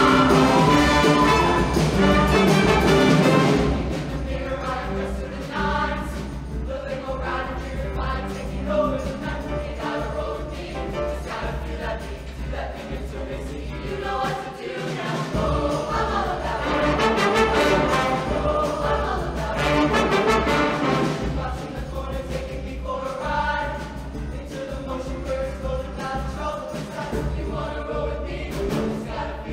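A show choir singing with a live band of keyboard, saxophones, bass and drums. It is loudest for the first few seconds, then settles back, and the bass drops out briefly about halfway.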